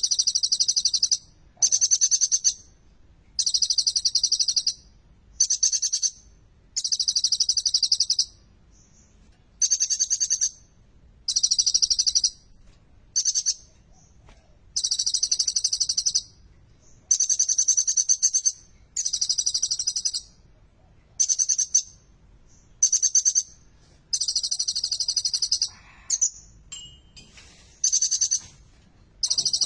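Kolibri ninja sunbird (konin) singing: a string of high-pitched, fast-trilled phrases about a second long, repeated over and over with short pauses between them.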